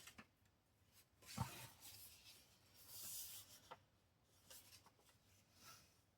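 Faint handling of paper: soft rustling and rubbing with a few light clicks, and one sharper tap about a second and a half in.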